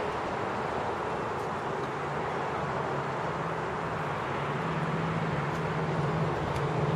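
Steady outdoor rumble with a low engine-like hum that grows stronger in the second half, like a motor vehicle running or passing, with a few faint ticks.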